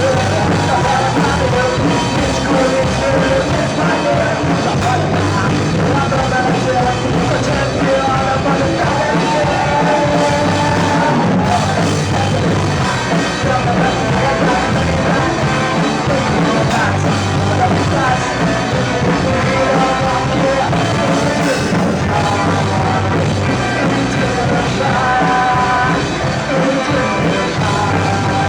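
Rock band playing live at full volume, with singing.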